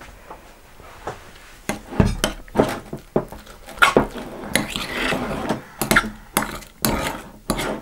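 A metal spoon stirring thick glue slime in a glass bowl, clinking and scraping against the glass in quick, irregular strokes that start about two seconds in.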